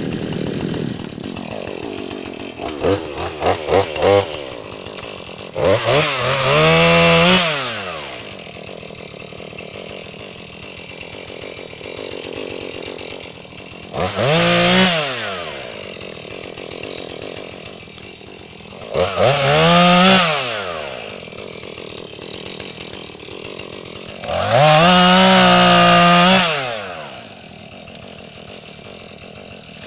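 Two-stroke gasoline chainsaw idling, with a few quick throttle blips, then revving up in four short full-throttle bursts as it cuts through oak limbs, dropping back to idle between cuts.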